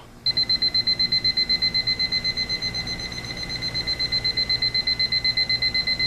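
TimeWise Harvard Collection quartz alarm clock's electronic alarm (its ascending 4-beep type) sounding: a high-pitched beep pulsing rapidly, about eight times a second, starting just after the start.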